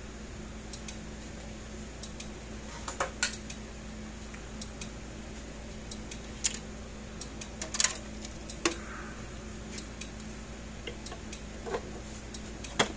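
Hands working on a fence energizer's plastic case and its parts on a workbench: scattered clicks, knocks and light clinks, irregularly spaced, the loudest about three and eight seconds in.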